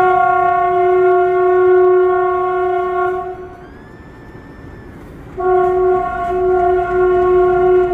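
Indian Railways diesel locomotive's air horn sounding two long, loud blasts on one steady note, about two seconds apart.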